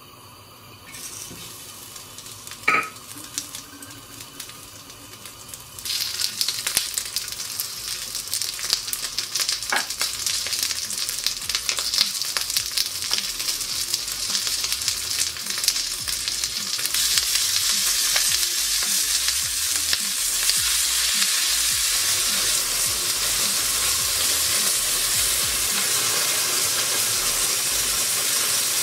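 A single sharp metallic clink, then lumps of fat crackling and sizzling in a hot hammered metal saç pan on a gas burner. The frying starts suddenly as a dense crackle and turns into a louder, steadier sizzle in the second half.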